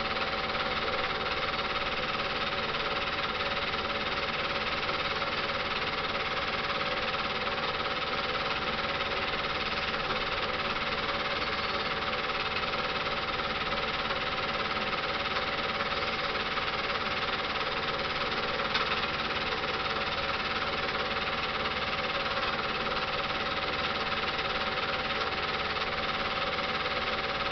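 Film projector running: a steady mechanical whirr with a constant hum and hiss, from old silent home-movie footage being projected and re-recorded.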